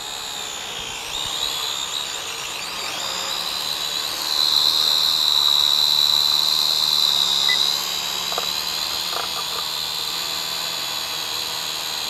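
Syma X5UC toy quadcopter's small motors and propellers whining close by, the drone held in the hand on a low battery. The high whine wavers in pitch at first, then holds steady and loudest for a few seconds in the middle before easing off.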